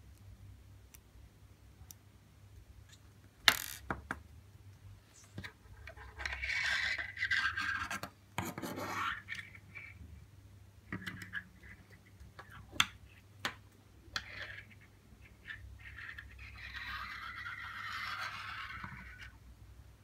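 Close handling noise of a digital dial indicator and its cable lifter: a sharp click about three and a half seconds in, a few lighter clicks, and two stretches of scratchy rubbing as small metal parts are worked together by hand, the second near the end.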